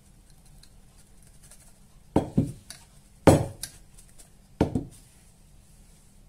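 Earthenware güveç pot being rocked by hand on a plastic cutting board, knocking and bumping against it in three short clusters of knocks.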